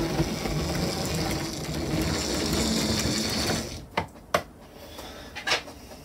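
Model train running with a steady mechanical whirr of its drive. It stops after about three and a half seconds, and then come three sharp clicks.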